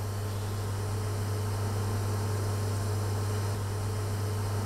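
EWM Tetrix microplasma welder running a 2-amp arc while filler wire is fed in: a steady low hum with an even hiss.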